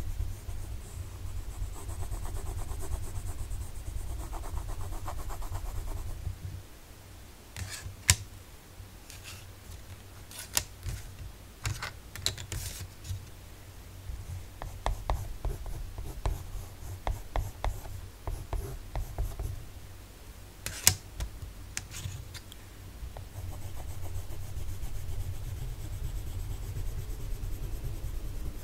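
Coloured pencil rubbing on sketchbook paper: a steady scratchy shading sound at first and again near the end. In the middle come short, scattered pencil strokes and light ticks, with two sharper taps about eight seconds in and about twenty-one seconds in.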